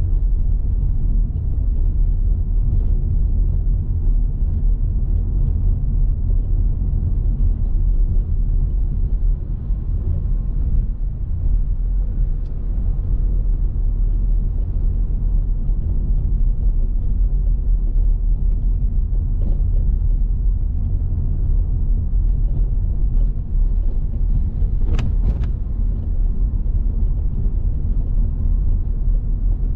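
A car driving: a steady low rumble of engine and road noise. About 25 seconds in there is a brief high-pitched sound.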